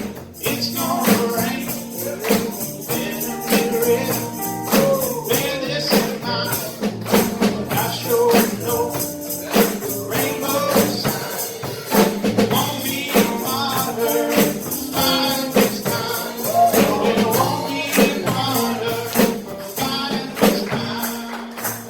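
Music with a fast, steady percussion beat like a tambourine and a singing voice over it.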